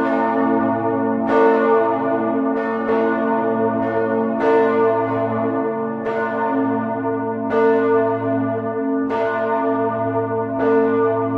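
Church bells ringing, a fresh stroke about every second and a half, with each bell's hum carrying on under the next.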